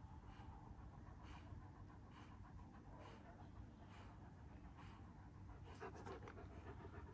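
A young Kangal shepherd dog breathing audibly close by, faint and regular at about one breath a second. A few faint clicks come about six seconds in.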